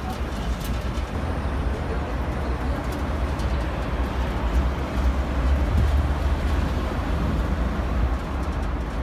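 Steady low rumble of the Zocotren, a tourist road train on rubber tyres, running along the road, heard from on board.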